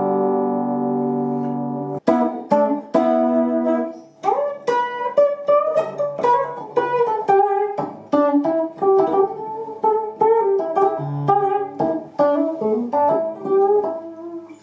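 Electric guitar, a 1980s two-knob Fender Stratocaster, set to its bridge pickup with the tone control fully clockwise for the most treble. A chord rings out and is cut off sharply about two seconds in, then quickly picked single-note melody lines follow.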